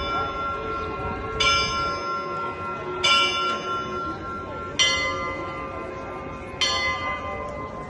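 Russian Orthodox church bells of Kazan Cathedral struck one at a time in a slow perezvon, four strokes about every second and a half to two seconds. Each stroke is left to ring on, and successive strokes come from bells of different pitch.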